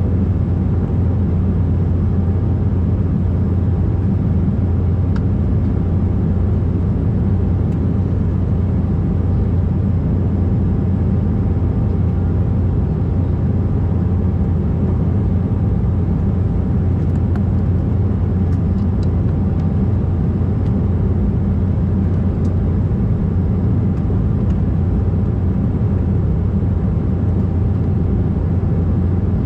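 Steady cabin noise of an Embraer 190 in flight: a deep, even rumble of its GE CF34-10E turbofans and the airflow past the fuselage, heard from a window seat over the wing, with a faint steady whine above it.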